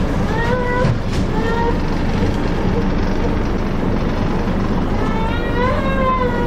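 Steady hum inside an Indian Railways Shatabdi Express passenger coach, with brief voices of other passengers in the background three times.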